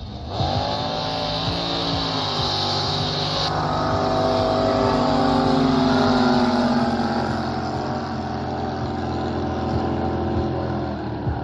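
Two racing jet boats' engines running flat out at high revs as the boats pass, getting louder toward the middle and then easing slightly.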